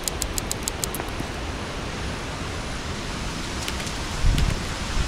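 A steady, even hiss of outdoor noise with fast, faint high ticking in the first second. From about four seconds in, gusts of wind buffet the microphone with low rumbles, and these are the loudest sound.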